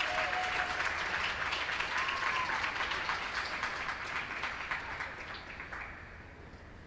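Small crowd applauding, the clapping thinning out and dying away near the end.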